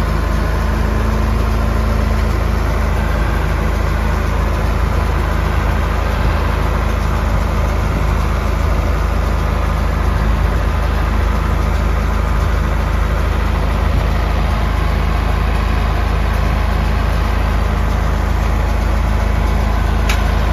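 Ford TW-20 tractor's six-cylinder turbo diesel running steadily while it pulls a New Holland 644 round baler through a hay windrow. A single short click near the end.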